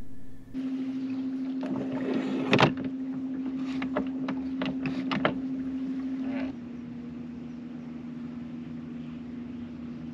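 Small outboard motor running at trolling speed with a steady hum. A run of knocks and clicks, the loudest about two and a half seconds in, as the fishing rod and its holder on the gunwale are handled.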